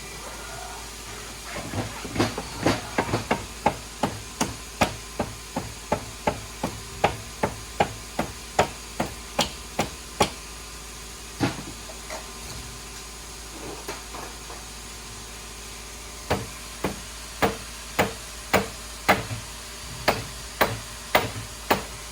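Repeated hammer blows struck on a motorcycle's front fork, about two a second in a long run, then a few seconds' pause and a second run. The fork only compresses its spring under the blows instead of sliding on the tubes.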